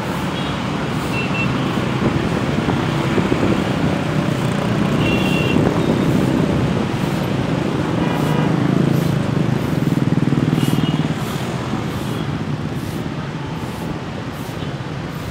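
Low, steady rumble of a GE U20C (CC 203) diesel-hauled train running away down the line, swelling and then easing off after about eleven seconds.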